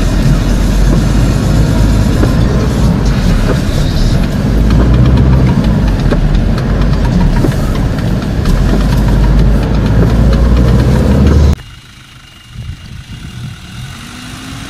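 4x4 engine and cabin rumble heard from inside a vehicle driving a rutted off-road track, loud and jolting. It cuts off suddenly about three-quarters of the way through to a much quieter engine idling outdoors.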